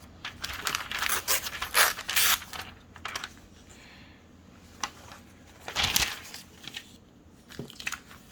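Paper catalog pages rustling and crinkling as they are handled and turned: a quick run of rustles over the first three seconds, then a few single ones later.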